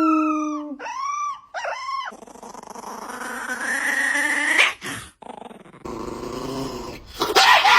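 A dog vocalizing. A held howl note ends under a second in, then come two short whines and a long growling sound that rises in pitch, then a lower grumble, and a burst of yips near the end.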